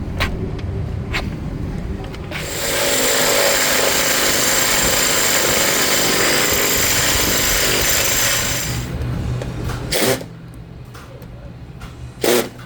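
A power tool runs steadily for about six seconds while a failed door hinge is worked on, then two sharp knocks follow near the end.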